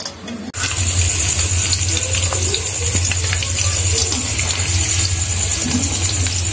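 Potato chunks frying in hot oil in a steel wok, a loud steady sizzle that starts abruptly about half a second in.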